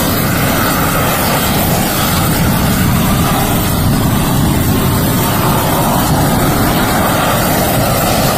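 Propane weed-burner torch burning steadily, a loud, even rushing noise.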